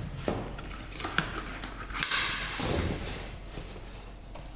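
Handling noises from unpacking a cordless drill kit: a few light clicks, a sharper click about two seconds in, then a brief rustling scrape.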